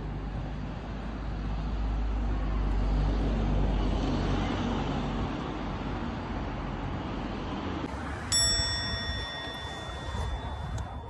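Low rumble of a moving vehicle, swelling and easing off, then a single bright ding about eight seconds in that rings on for a couple of seconds.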